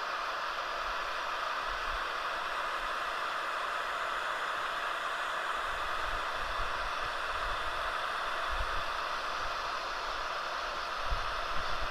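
Electric heat gun with a plastic-welding tip blowing steadily, a constant hiss of hot air as it heats the HDPE seam and filler rod before they melt. A few low rumbles come through in the second half.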